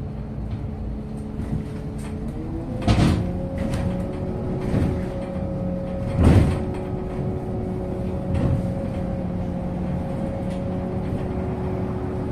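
MAZ-215 articulated city bus heard from inside: the drivetrain keeps up a steady hum whose pitch steps up about two seconds in. Over it come four short hisses of compressed air from the bus's pneumatic system, the loudest about three and six seconds in.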